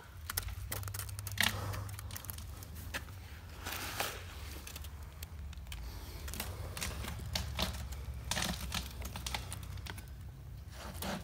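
Gloved hand scooping and packing wet concrete around the base of a ribbed plastic septic tank riser: irregular small clicks and short scrapes, a few louder than the rest, over a steady low rumble.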